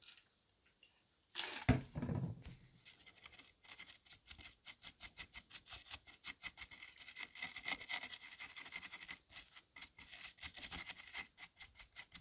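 A razor blade scraping and picking between the tiny contacts of a USB-C port, in rapid short strokes several times a second, working to separate pins that should not touch. A single handling knock comes just before the scraping starts.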